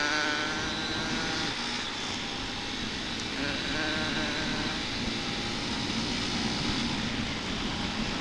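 Honda TMX125 Alpha's single-cylinder engine running hard at speed on the open road, with wind rushing past.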